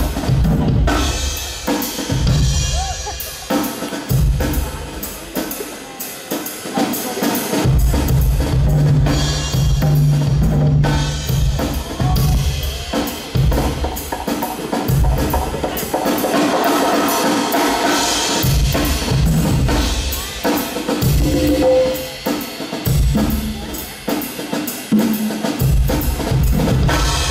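Loud music with a driving drum-kit beat and a heavy bass line.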